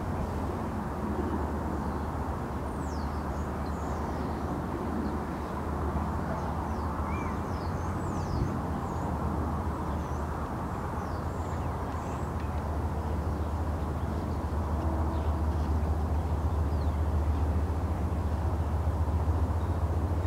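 Steady outdoor rumble of wind on the microphone and distant traffic, growing a little louder in the second half, with faint high bird chirps in the first half.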